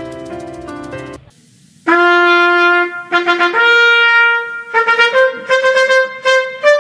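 Trumpet fanfare: after a short pause, a few long held notes, then a run of shorter, quicker notes. Soft background music fades out just before it, about a second in.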